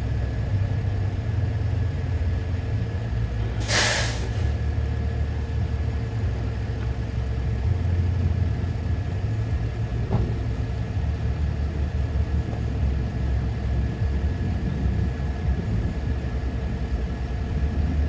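Diesel freight locomotive idling while stopped, a steady low rumble, with a short sharp burst of air hissing from the air brakes about four seconds in.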